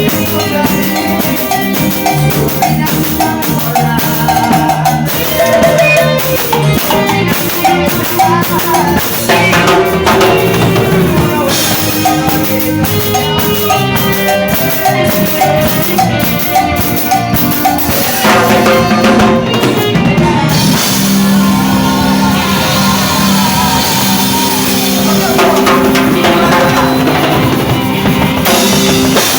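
Live cumbia band playing, with the drum kit prominent and snare and bass drum hits over a sustained melody. In the middle there are runs of rapid drum strokes, the drummer's breaks.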